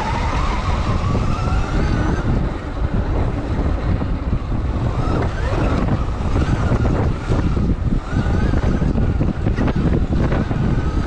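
Sur-Ron Light Bee electric dirt bike's motor whining, climbing in pitch over the first two seconds as it accelerates, then rising and falling with the throttle, over a heavy rumble of wind on the microphone.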